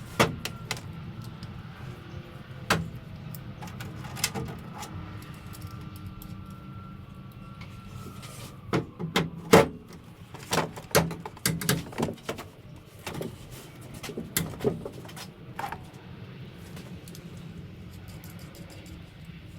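Irregular knocks, clicks and clanks of parts and tools being handled, coming thickest in a run a little past halfway, over a steady low hum.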